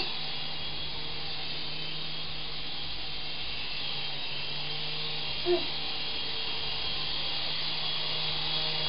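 Syma S108G toy RC helicopter, a small coaxial-rotor model of a Bell AH-1 Cobra, in flight: its little electric motors and rotors give a steady buzzing whine. A toddler's brief vocal sound about five and a half seconds in.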